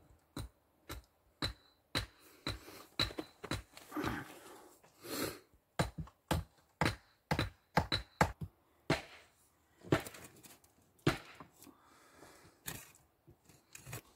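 Rock being struck, with sharp, irregular knocks about two or three a second, some ringing briefly. Short scraping passages come about four seconds in and again near the end.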